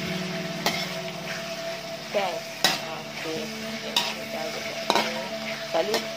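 Chicken pieces and fish balls sizzling in hot oil, stirred with a metal spatula that clinks against the pan five times at uneven intervals.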